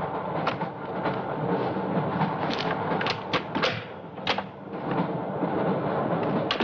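Steady rumble of a moving train heard inside a railway baggage car. A quick series of sharp knocks and clicks falls in the middle, and one more click comes near the end.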